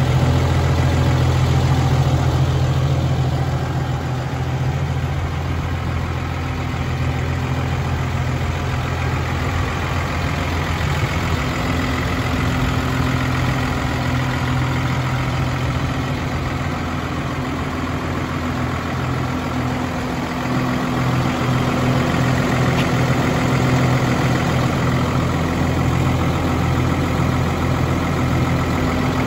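New Holland T7.270 tractor's six-cylinder diesel engine idling steadily, a little quieter for a stretch in the middle.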